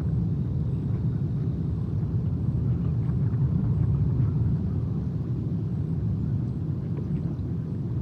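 A steady low outdoor rumble, swelling a little in the middle, with no distinct calls or events.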